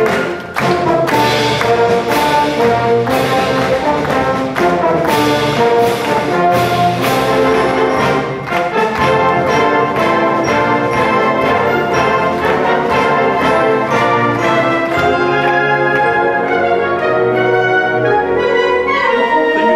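Concert band playing, with brass to the fore: trumpets, trombones and horns sounding held and moving chords.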